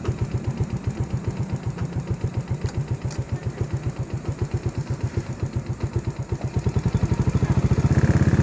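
Vehicle engine idling with an even, fast pulse, then speeding up and getting louder about seven seconds in.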